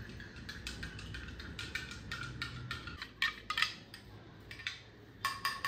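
A spoon clinking repeatedly against the inside of a cup while stirring a scoop of pre-workout powder into a drink. There is a quick run of light ringing taps, then a few louder knocks, and two more near the end.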